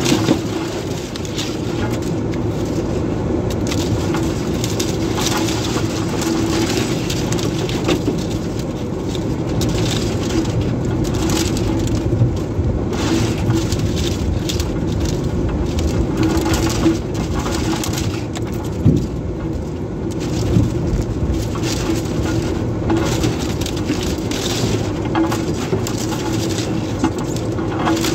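Two-wheel-drive vehicle driving through deep snow, heard from inside the cab: a steady engine drone under the continuous crunch and scrape of tyres and body pushing through snow, with a few louder knocks from bumps.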